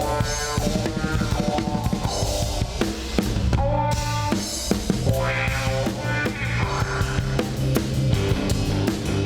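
Live band playing an instrumental break: drum kit with kick and snare keeping a steady beat under a bass line and melodic lead phrases.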